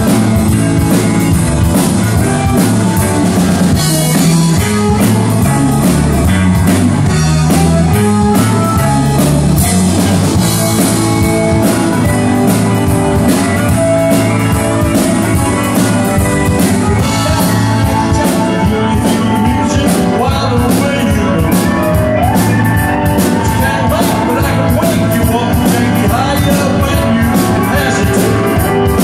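Rock band playing live and loud: electric guitars, electric bass and a drum kit, with singing at times.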